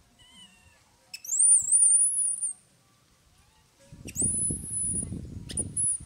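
A baby long-tailed macaque crying: two long, very high-pitched squeals, the first wavering in pitch, the second held steadier with a short extra squeak near the end. A low rumbling noise runs under the second cry.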